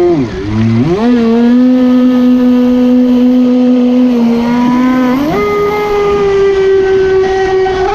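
Brushless electric motor and propeller drive of a Proboat Impulse 31 RC boat whining at speed, heard from on board over rushing water and spray. The pitch dips and climbs back near the start, holds steady, then steps up to a higher whine about five seconds in as the throttle opens.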